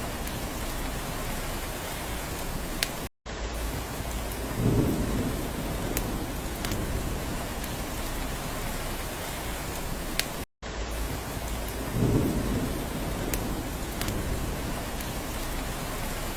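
Steady heavy rain with scattered sharp drips, and a brief low rumble of thunder twice. The sound drops out to silence for a split second twice, at the seam of a short repeating loop.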